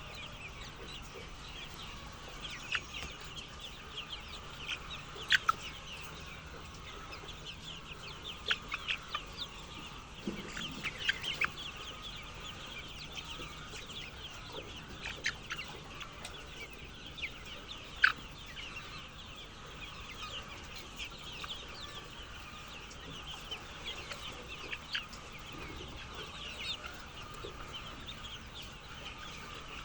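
A flock of chickens clucking and calling in a steady, dense chatter, with a few louder sharp calls standing out now and then.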